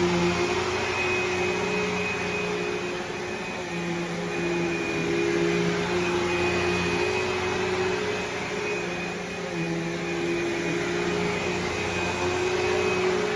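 Vacuum cleaner running steadily, a motor whine over airflow hiss, its pitch and loudness wavering a little as it works.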